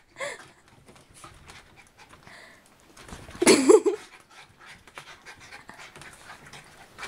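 Small dogs panting and scuffling while one mounts the other, with a brief louder pitched vocal sound about halfway through.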